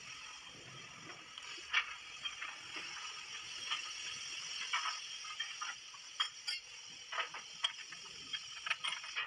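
Irregular metallic clicks and clanks from a tyre-remoulding mould press and hand tools as a remoulded tractor tyre is taken out and its curing rim is unbolted, over a steady high hiss.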